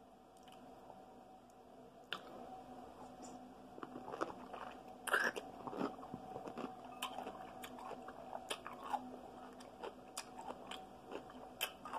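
Crunching bites into a large whole dill pickle and chewing it, with wet crackly crunches; the loudest bite comes about five seconds in.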